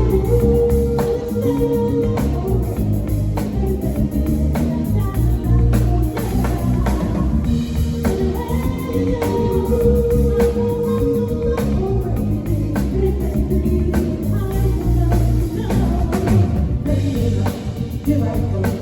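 Live soul band playing with a lead vocal: singing over bass, guitar and drum kit, with a steady beat.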